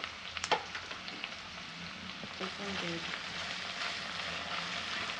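Sliced onions frying in oil for beresta, a steady sizzle, with one sharp knock about half a second in and a few lighter clicks.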